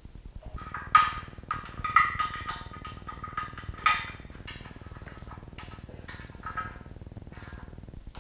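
Click-type torque wrench ratcheting on the oil pan bolts of a Ford 351 Windsor V8, a run of sharp, irregular metallic clicks with a short ring after the louder ones, as the bolts are brought up to 11 foot-pounds.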